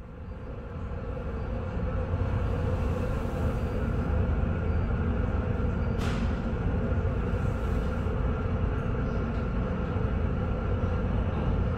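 Steady low rumble and rush of the large car ferry Kyoto under way at sea, swelling over the first two seconds and then holding steady. A single sharp click about six seconds in.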